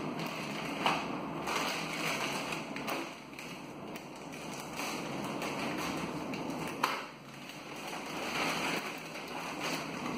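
Clear plastic bag crinkling and rustling as it is handled and cut open with scissors, with a few sharp clicks, the loudest about seven seconds in.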